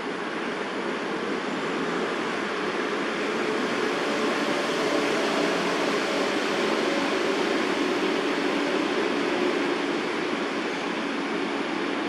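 Steady rumble of distant city traffic, swelling slightly through the middle with a faint engine hum.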